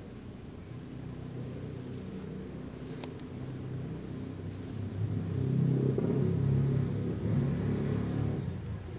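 Low engine rumble of a passing vehicle, swelling about five seconds in and easing off near the end.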